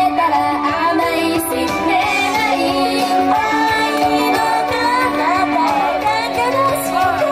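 Live music: a singer's voice over steady held backing chords.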